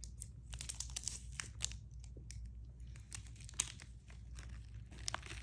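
Sweets packet crinkling and crackling as it is cut open with scissors and handled: a run of small, irregular crackles.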